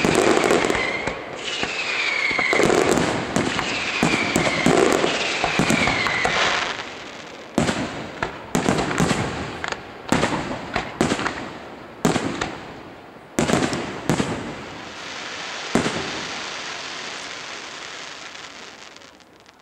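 Aerial firework shells going off: dense crackling with repeated falling whistles for the first several seconds, then a string of separate sharp bursts about a second apart, each trailing off in crackle. The crackle fades away near the end.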